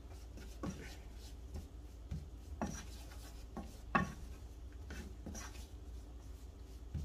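A spoon stirring a butter-and-flour roux in a saucepan, scraping against the pan in a few short strokes, with a steady low hum underneath.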